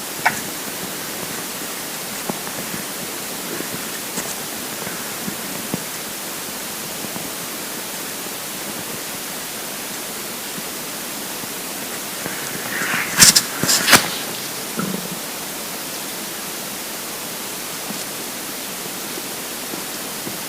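Steady hiss of a close recording between stomach rumbles. About two-thirds of the way in comes a short cluster of sharp clicks and crackles, followed by a brief faint low gurgle.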